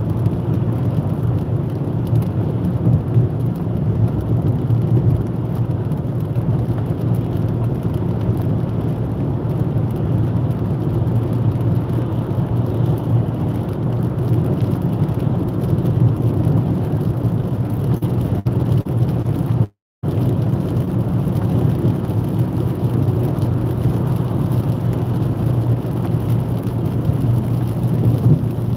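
Steady road noise heard from inside a car at motorway speed: a low rumble of engine and tyres with a hiss from the wet road. The sound cuts out completely for a moment about twenty seconds in.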